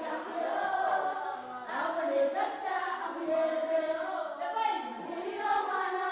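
A group of voices singing together, unaccompanied.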